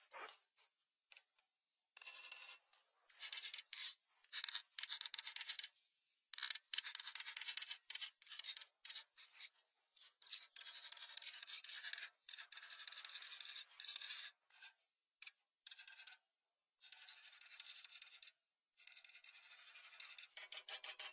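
Pastel crayon scribbling on paper: bursts of scratchy rubbing strokes, each a second or so long, with short pauses between.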